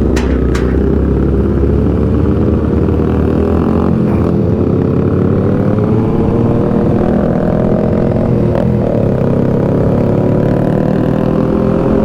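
Kawasaki ZX6R inline-four motorcycle engine under way, its pitch rising slowly and steadily as the bike gathers speed in one gear, over a low rumble. Two short clicks just after the start.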